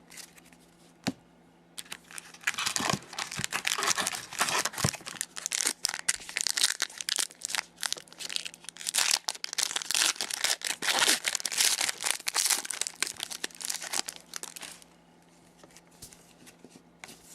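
A hockey card pack's wrapper being torn open and crinkled: a dense run of crackling and rustling lasting about twelve seconds, dying down near the end.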